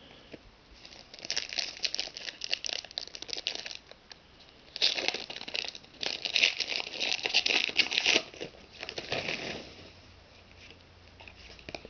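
Foil wrapper of a trading-card pack crinkling and tearing as it is opened, in two long spells of crackly rustle, the second about five seconds in. Quieter handling of the cards follows near the end.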